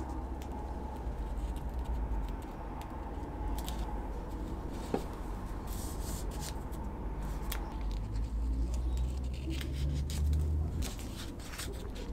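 Paper masking tape being wrapped and pressed onto a steel knife blade: crinkling and rubbing of the tape with scattered small clicks and ticks, over a steady low rumble.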